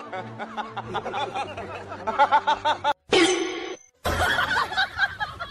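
A person snickering and laughing in short repeated bursts, broken by two brief drops to silence a little past the middle.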